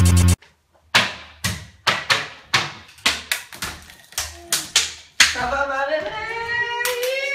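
A short transition sound effect, then about a dozen sharp smacks, roughly three a second, as a rolled-up tube is swung down repeatedly onto a person on a bed. After about five seconds the smacks give way to a long drawn-out cry from a voice, rising in pitch.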